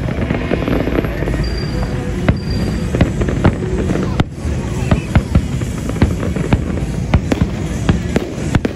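Fireworks going off in a dense, irregular barrage of sharp bangs and crackles, several a second, over a continuous rumble.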